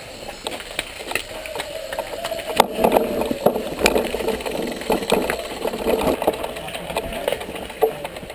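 Mountain bike rattling and clicking as it is pushed and bumped along a rough path and up steps: irregular knocks and clicks over a steady mid-pitched hum.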